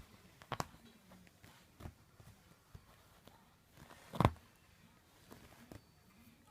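Scattered light taps and knocks from a kitten moving about and playing, with one louder thump about four seconds in.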